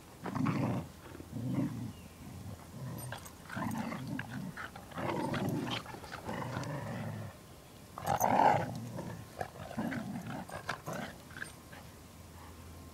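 A yellow Labrador retriever puppy and a black dog growling as they play-wrestle: a string of short, rough growls with gaps between them, the loudest about eight seconds in, dying away about eleven seconds in.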